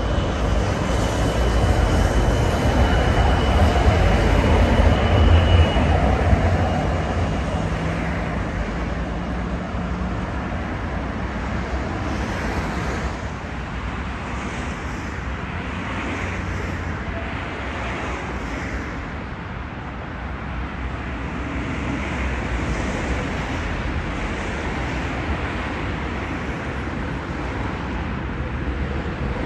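Tram running past on street tracks with a heavy low rumble, loudest about five seconds in, and a thin high whine over the first few seconds. It then eases into steady street-traffic noise.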